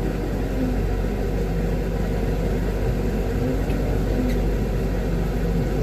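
Diesel engines running steadily as a concrete mixer truck discharges into a line pump.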